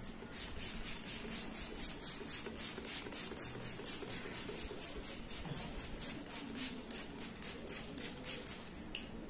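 Trigger spray bottle of dog dry shampoo being pumped in quick succession, about four short hissing sprays a second, misting shampoo over the dog's coat.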